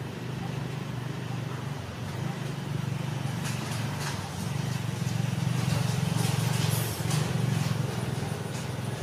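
A steady low motor hum, like an engine running, a little louder around the middle, with a few faint clicks or rustles over it.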